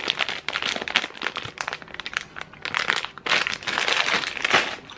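Plastic candy bag crinkling as it is handled and squeezed in the hands: dense, irregular crackling.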